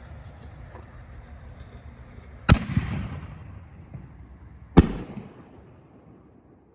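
Aerial firework shell fired from a mortar tube: a loud launch bang about two and a half seconds in, then the shell bursting a couple of seconds later. Each bang trails off in echo.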